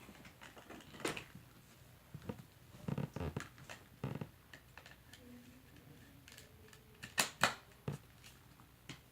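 Handling noises of vacuum cleaner parts being moved about: scattered clicks and taps with a few dull knocks, and no vacuum motor running.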